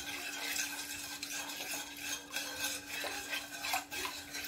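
Wooden spoon stirring a raw cornflour, sugar and water mixture in a pan, with irregular scraping strokes against the pan as the lumps are mixed out before heating. A steady low hum sits underneath.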